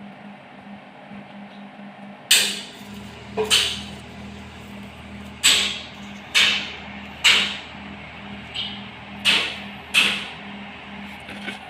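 About eight sharp knocks at uneven intervals, beginning about two seconds in, over a steady low hum with a faint pulsing beat about four times a second.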